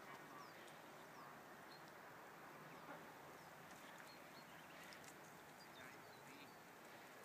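Near silence: faint outdoor ambience with small birds chirping now and then.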